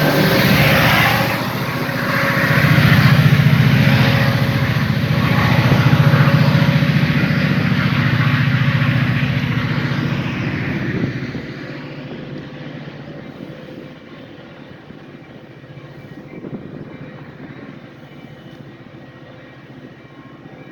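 Metra diesel commuter train running through the station: a loud, steady rumble of engine and wheels that drops off about halfway through and keeps fading as the train moves away.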